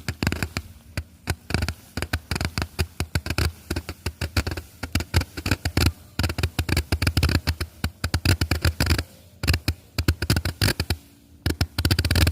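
Homemade 690-shot firework battery firing: a rapid, irregular string of sharp pops, several a second, with brief lulls about nine and eleven seconds in.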